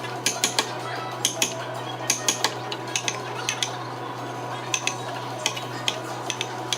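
Irregular sharp metallic clicks and taps, some in quick pairs, from hand tools working on wood, over a steady low hum.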